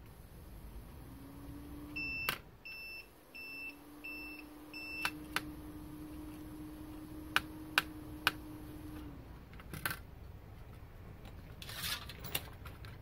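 Five short, evenly spaced electronic beeps from bench test equipment, starting about two seconds in, over a steady low hum that stops near the end. A few sharp clicks as probe tips touch the circuit board.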